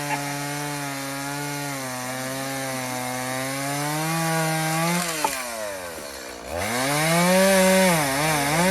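Two-stroke chainsaw running at high revs, steady for about five seconds, then dropping off the throttle and revving back up about six and a half seconds in, its pitch sagging and recovering near the end.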